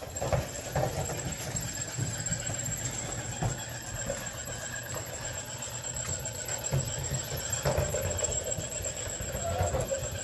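A group of vizsla puppies milling and play-wrestling on a tile floor: scattered light clicks of claws on tile and soft scuffling over a low rumble, with a brief whine near the end.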